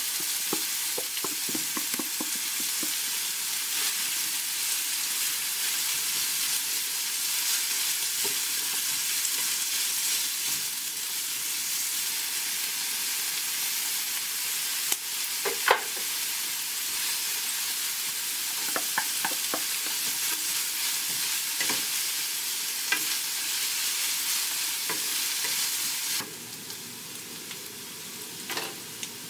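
Minced meat and chopped onion sizzling in a frying pan, with a wooden spatula stirring and knocking against the pan now and then. The sizzle drops quieter about 26 seconds in.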